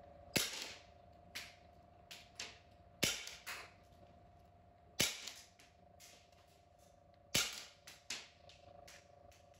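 CO2 airsoft pistol firing single shots: about ten sharp cracks at an irregular pace, the loudest spaced a second or two apart.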